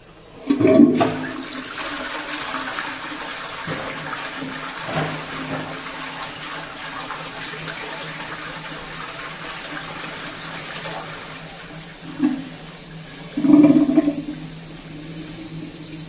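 Public toilet flushing from a wall-mounted push button: water rushes into the pan suddenly about half a second in and runs steadily and strongly, with two louder surges near the end as the flush finishes.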